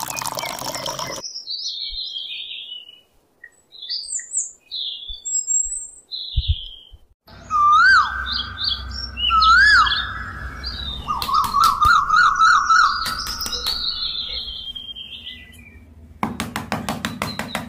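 Birds chirping, then from about seven seconds in repeated looping whistled bird calls over a low steady hum. There is a brief rush of water being poured into a small plastic trough at the start, and music with a ticking beat comes in near the end.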